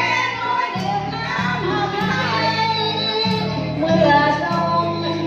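A woman singing a Thai song into a microphone, amplified through a PA speaker over instrumental accompaniment with a steady repeating bass line.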